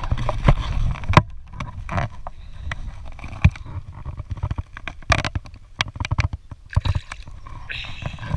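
Close handling noise on a chest-mounted action camera: irregular knocks and rubbing over a low rumble, as a hand lowers a small bass into the water and lets it go.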